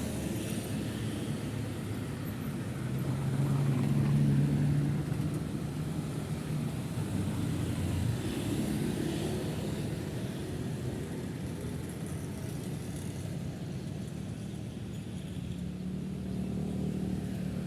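Busy city road traffic: cars and motorcycles passing continuously with a steady engine hum and road noise. One vehicle passes loudest about four seconds in, and another engine swells near the end.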